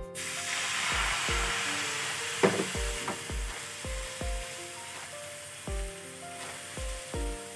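Milk sizzling and bubbling in a hot butter-and-flour roux in a nonstick pan while it is stirred with a silicone spatula. The sizzle is loudest at first and gradually dies down.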